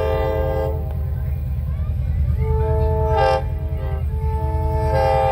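An approaching locomotive sounds its multi-note chime signal in long blasts. One blast ends just under a second in, another runs for about a second and a half near the middle, and a third starts near the end. A steady low rumble runs underneath.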